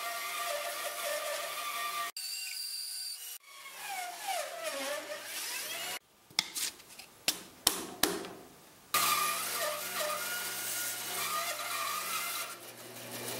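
Bandsaw running and cutting through a thick wooden board, heard in several short clips: a steady whine while the blade is in the wood, a stretch where the pitch falls, and a few sharp knocks in the middle.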